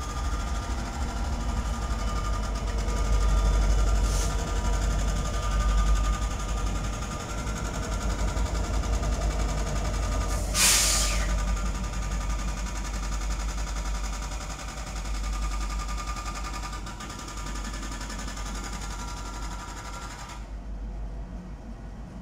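Several Norfolk Southern diesel locomotives passing close by, running with a low rumble and steady whining tones. A short, sharp hiss stands out about halfway through, and the whining tones drop away shortly before the end.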